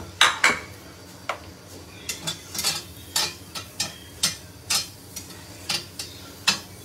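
Metal tongs tossing sliced onions on a ridged grill pan: a dozen or so irregular clicks and scrapes of metal on the pan, the sharpest right at the start, over the onions sizzling.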